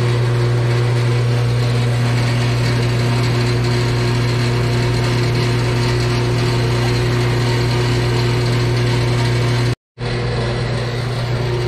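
Horizontal metal-cutting bandsaw running, its blade cutting slowly through a thick 4-inch steel tube: a steady motor hum with the blade working the steel. The sound drops out for an instant near the end, then the same running sound carries on.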